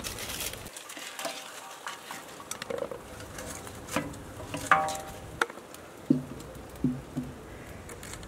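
Raw potato slices laid one by one into a large oiled aluminium pot: scattered soft taps and light metallic clinks against the pot, one ringing briefly about halfway through.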